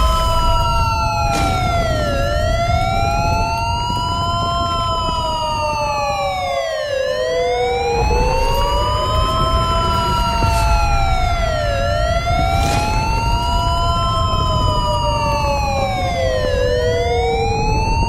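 Emergency sirens wailing, two tones overlapping, each rising and falling slowly about once every five seconds. Underneath runs a steady low rumble.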